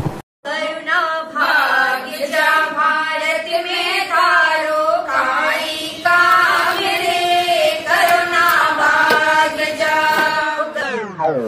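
Background music: a voice singing a chant-like melody, ending in a falling pitch sweep just before the end.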